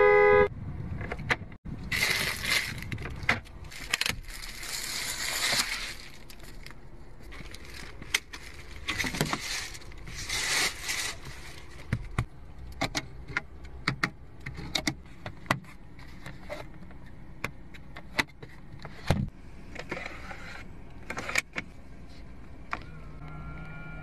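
A car horn cuts off at the very start. Then come handling sounds in a car cabin: scattered clicks and taps, with several bursts of rustling as of plastic wrapping on a seat. Near the end a small electric motor starts a steady hum.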